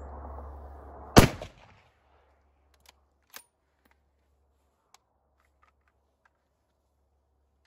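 A single shot from a Savage Axis bolt-action rifle in .270 Winchester about a second in, with a short ringing tail. It is followed by a few sharp metallic clicks as the bolt is worked.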